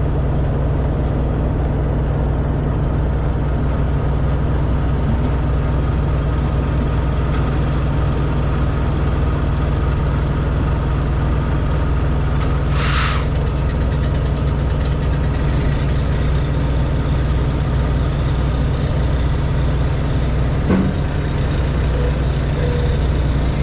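Heavy diesel engine idling steadily, with a short hiss of air released about halfway through.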